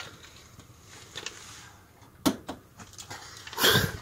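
Quiet handling noises inside a small sleeping pod: two sharp clicks a little past two seconds in, then a short, louder burst of noise near the end, the loudest sound.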